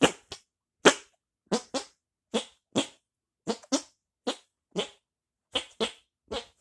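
Armpit farts: a hand cupped under the armpit pumped by the arm to make a rapid run of about fourteen short pops, roughly two a second, often in quick pairs.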